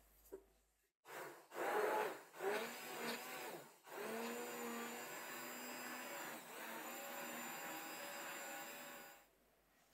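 Electric hand blender with a whisk attachment whipping an egg mixture in a glass bowl: a few short spurts about a second in, then running steadily for about five seconds before switching off.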